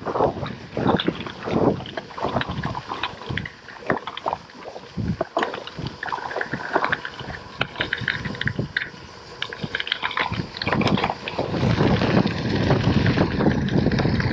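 Tyres of a Scott Speedster gravel bike crunching and rattling over a loose gravel path, with irregular crackles. Wind buffets the camera microphone throughout and gets heavier over the last few seconds.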